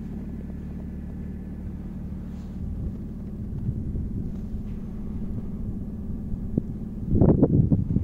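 A car engine idling with a steady low rumble, and rougher bursts of wind noise on the microphone near the end.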